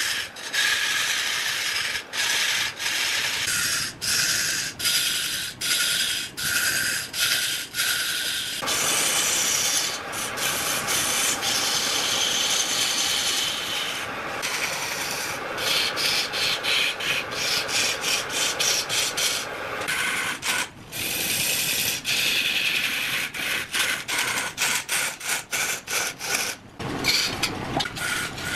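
Long-handled turning tool cutting into a large log spinning on a wood lathe: a rough, steady scraping of wood being turned, broken by many brief gaps where the sound drops out for a moment.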